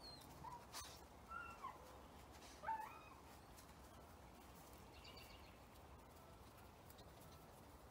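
Quiet outdoor background with a few faint, short bird chirps and whistled glides, the loudest about two and a half seconds in.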